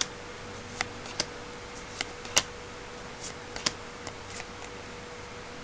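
Yu-Gi-Oh trading cards flicked through by hand, one card slid off the front of the stack at a time: a run of sharp card snaps and clicks at uneven intervals, about every half second, over a faint steady hum.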